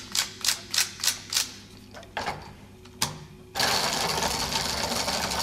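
Wooden UGears tram model being wound, its ratchet clicking about three times a second, then stopping, with a couple of single clicks after. About three and a half seconds in, the tram is released and its rubber-band motor drives the plywood gears in a steady, dense rattle as it runs along its wooden rails.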